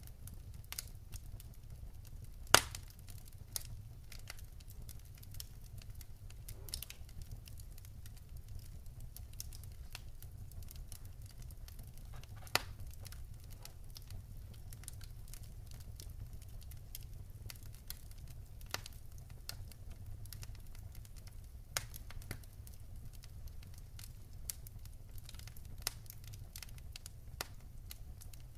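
Wood campfire crackling: scattered sharp pops and snaps, the loudest a few seconds in, over a low steady rumble.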